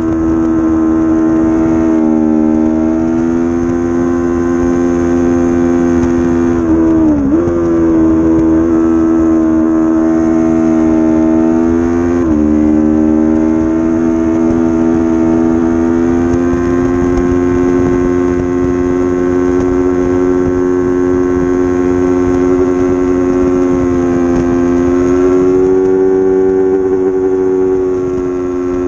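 A 300-class racing motorcycle's engine, heard from the bike itself, running at high revs under load. The pitch dips sharply and climbs again twice, about seven and twelve seconds in, as it changes gear, then holds and rises slowly.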